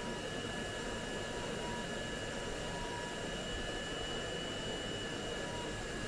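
Small RC-motor-driven fan running at a steady speed: an even rush of air with a steady high-pitched whine of several tones.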